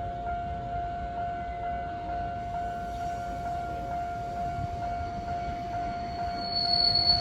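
Japanese railway level-crossing warning bell sounding its steady electronic tone. Near the end a train arrives and a high wheel squeal starts over it.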